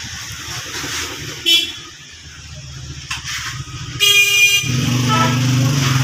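A vehicle horn blares once for under a second about four seconds in, right after two brief high toots, and then an engine runs steadily. A low engine rumble sits underneath at the start.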